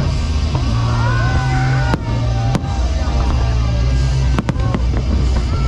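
Fireworks bursting over loud music with a heavy, steady bass. Sharp bangs stand out about two seconds in, again a little later, and in a quick cluster a little after four seconds.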